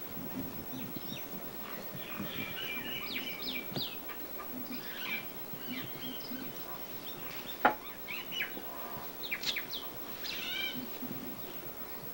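Small birds chirping and twittering in short, quick calls, with one sharp knock of a hand tool on the marble tiling about two-thirds of the way through.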